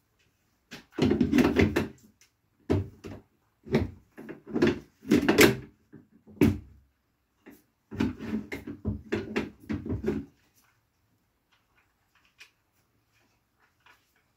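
Handling noise from unpacking a table saw: an irregular series of bumps, scrapes and rustles of packaging and parts, in bursts lasting about ten seconds.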